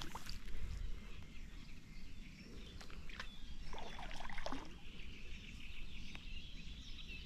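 Fishing tackle handled while a hooked carp is played toward the landing net: scattered knocks and clicks over a low rumble, with high chirping birdsong starting about halfway.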